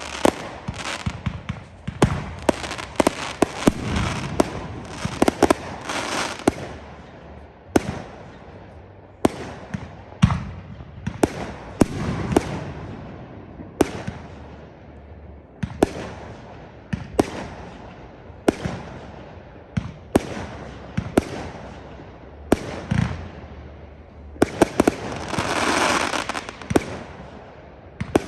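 Fireworks display: a steady run of sharp bangs from bursting aerial shells, each with a trailing echo. There are stretches of dense crackling a few seconds in and again near the end.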